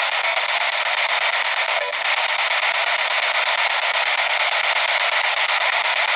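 P-SB7 spirit box sweeping through radio stations, giving a steady hiss of static from its small speaker, with a brief break about two seconds in.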